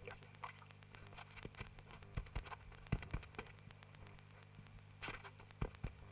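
Microphone handling noise: scattered bumps and clicks as a handheld microphone is picked up and adjusted, the loudest about three seconds in and near the end, over a low steady hum.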